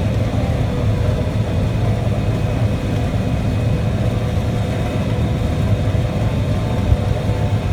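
Large diesel engine of harvest machinery running steadily under load, a constant low drone.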